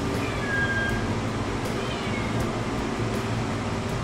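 Domestic cat meowing twice, each call falling in pitch, about half a second in and again about two seconds in, over a steady low hum.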